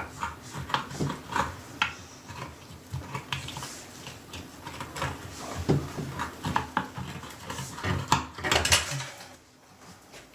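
Metal pop-up drain rod clicking and knocking as it is worked back and forth to free it from a sink drain jammed with hair. There are irregular clicks throughout, with louder knocks about halfway through and again near the end, then it goes quieter.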